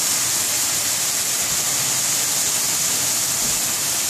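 Napa cabbage sizzling in a cast-iron skillet: a steady, even hiss.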